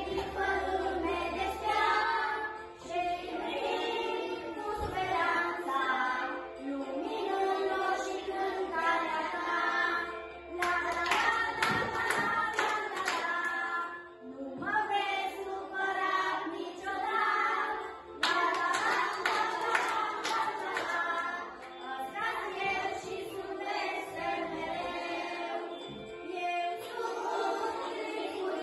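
A group of young children singing a song together, clapping their hands along with it in two stretches, about ten seconds in and again about eighteen seconds in.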